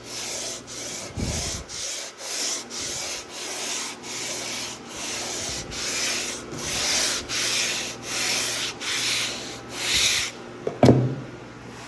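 Sandpaper (80 grit) on a sanding beam rubbed back and forth over a wooden guitar fretboard, about two strokes a second, levelling a hardened CA glue seal over the inlays. The sanding stops near the end, followed by a single knock.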